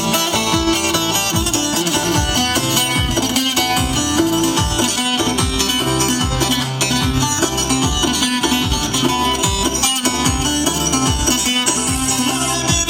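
Loud live Kurdish wedding dance music: a fast melody of quick, plucked-sounding notes over a steady drum beat.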